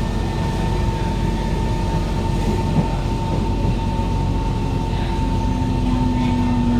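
Kawasaki Heavy Industries C151 metro train with GTO-VVVF traction, heard from inside a car while running, with a steady rumble and a steady high whine. A lower steady hum joins about five seconds in.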